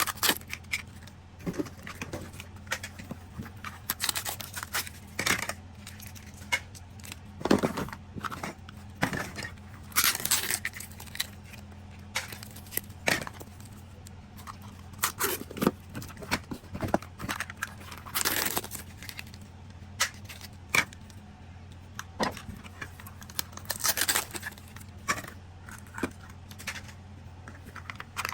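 Small plastic capsules, packaging and miniature toys being handled: irregular clicks and clacks, with a few longer scraping sounds.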